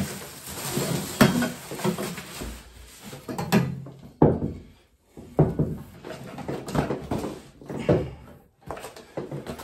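Cardboard boiler packaging being pulled off and handled: irregular knocks, scrapes and rustles of cardboard, with a sharp knock about four seconds in.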